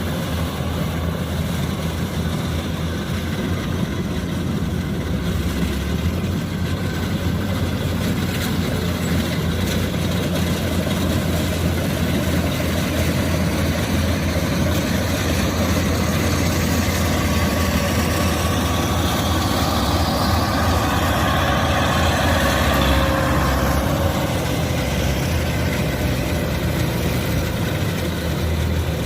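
Kubota rice combine harvester's diesel engine and threshing machinery running steadily, with a deep hum throughout. It grows busier and a little louder from about two-thirds of the way through, then eases again near the end.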